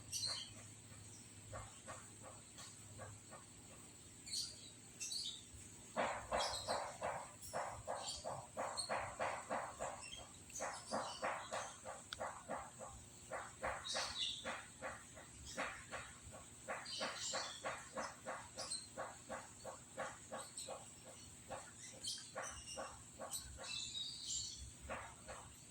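Dog eating from a bowl: quick rhythmic chewing and lapping, about three to four strokes a second, starting about six seconds in and running on with short pauses. Crickets drone steadily behind it, with occasional bird chirps.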